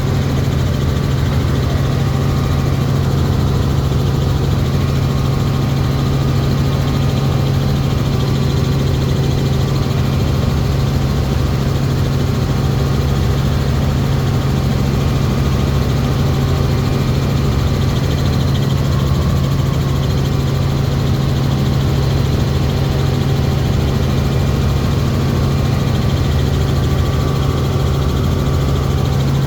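Helicopter in flight: a loud, steady drone of rotor and engine with a strong low hum, unchanging throughout.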